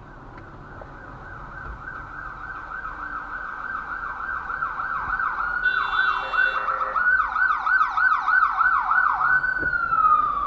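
Emergency vehicle siren in a fast yelp, each sweep falling from high to lower pitch, growing steadily louder as it approaches. A brief steady horn tone sounds about six seconds in and a second higher siren sweeps alongside from about seven seconds. Near the end the siren holds one tone and then slides down in pitch.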